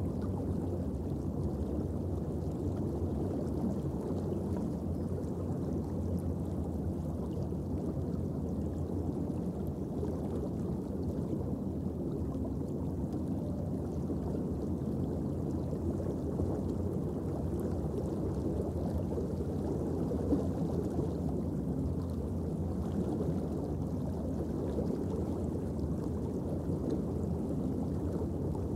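Underwater reef ambience picked up by a camera inside its underwater housing: a steady low rush of water with a faint crackle in the high end.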